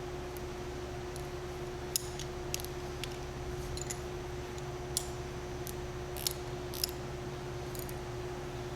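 Light metallic clicks of a wrench on the valve body's steel bolts, about nine scattered at irregular intervals, over a steady electrical hum.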